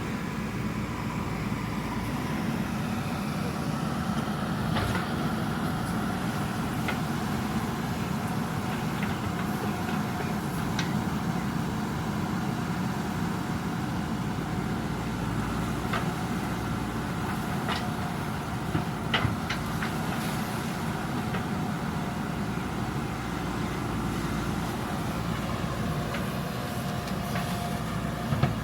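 JCB 3DX backhoe loader's diesel engine running steadily while working, with scattered sharp knocks, the loudest a short cluster about nineteen seconds in.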